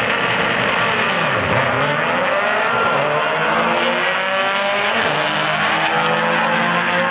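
A VW Beetle and a Karmann Ghia drag car launching from the line and accelerating hard down the strip, their engines rising in pitch again and again as they pull through the gears.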